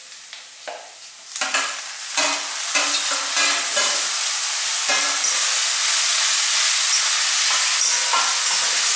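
Onion, garlic, ginger and tomato paste frying in oil in a pan, stirred with a spoon. There are a few scrapes and knocks at first, then the sizzle builds about two seconds in and runs as a loud, steady hiss.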